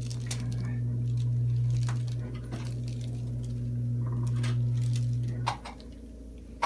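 Handheld electric vibrating massager running with a steady low hum and scattered light clicks. It switches off about five and a half seconds in.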